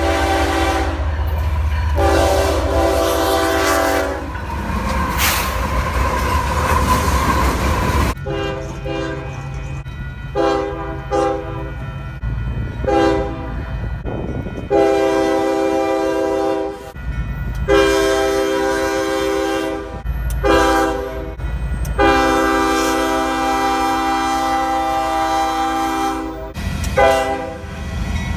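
Nathan K5HL five-chime locomotive air horn sounding a chord in a string of long and short blasts, over the low rumble and wheel clatter of a passing train. Midway the blasts fall into long, long, short, long: the grade-crossing warning signal.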